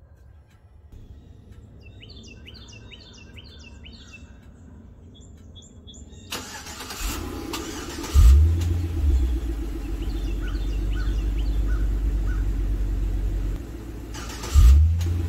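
Birds chirp faintly, then the Hummer H3 Alpha's 5.3-litre V8 is started: it catches with a loud rev about eight seconds in and settles into a steady, deep idle through the exhaust. Near the end the engine is started again with a second loud rev.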